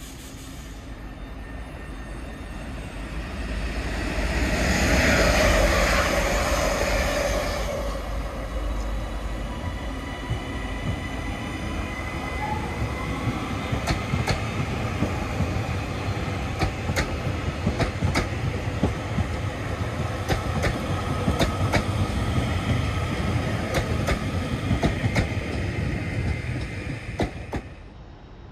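A Northern class 331 electric multiple unit running past with a steady motor whine. It is loudest about five seconds in, then the wheels click over rail joints as the carriages go by, and the sound drops away near the end.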